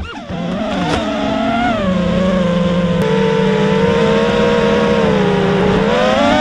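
FPV racing quadcopter's brushless motors whining under throttle, the pitch dipping and climbing as the pilot works the throttle, with a brief drop right at the start and a rise near the end.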